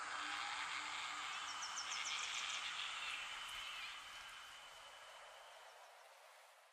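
The tail end of a backing electronic music track: a soft hiss-like noise wash with a few faint high chirps, fading out steadily over the last few seconds.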